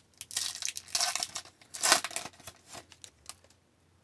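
Foil wrapper of a hockey card pack being torn open and crinkled by hand: a run of crackling tears over the first three seconds, loudest about two seconds in, then quiet.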